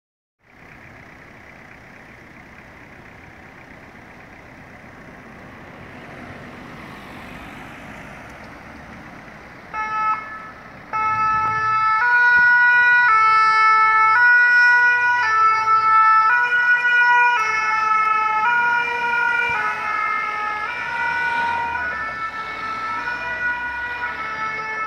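Traffic and engine noise grows slowly louder. Then, about ten seconds in, a French fire-service VSAV ambulance's two-tone 'pin-pon' siren gives a short blip and starts up, alternating steadily between two notes. It gets somewhat fainter near the end as the vehicle moves off.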